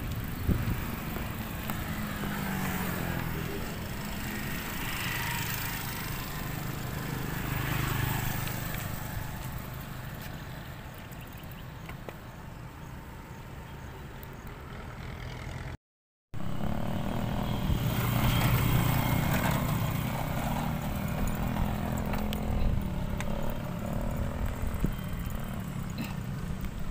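Outdoor road noise during a bicycle ride: wind and tyre rumble, with the engine of a motor vehicle passing at times. The sound cuts out briefly about two-thirds of the way through.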